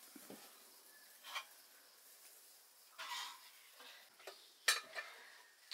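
Iron wok on the stove: a few short hissing sizzles and light metal clinks, the sharpest clink about three-quarters of the way through.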